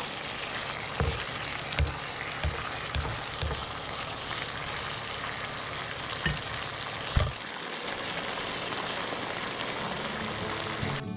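Tilapia fillets sizzling and bubbling in a Coke-and-tomato sauce in a nonstick frying pan. A spatula knocks dully against the pan several times in the first seven seconds.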